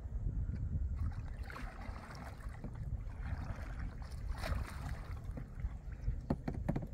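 Wind on the microphone as a steady low rumble, with kayak paddles dipping and splashing in lake water and a few light knocks near the end.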